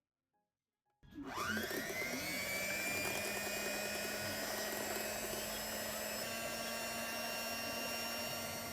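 A small electric kitchen appliance motor switches on about a second in, its whine rising quickly as it spins up, then runs at a steady speed.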